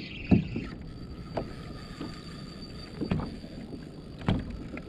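Okuma Ceymar spinning reel's drag giving line to a hooked fish, a thin steady whine, with four dull knocks spaced through it.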